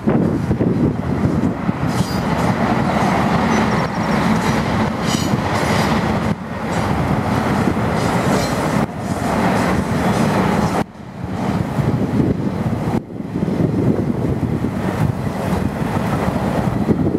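Canadian Pacific Expressway piggyback train's trailer-carrying flatcars rolling past: a steady loud rumble and clatter of wheels on rail, dipping briefly a few times.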